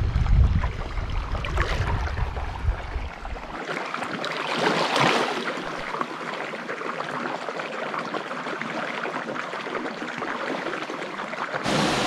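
Wind buffeting the microphone with a low rumble for the first few seconds, then water splashing and sloshing as a man wades into a rock pool, loudest about four to five seconds in.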